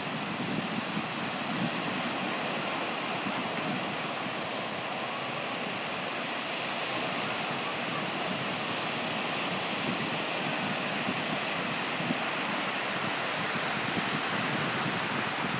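Sea waves breaking and washing on the shore: a continuous, steady rush of surf.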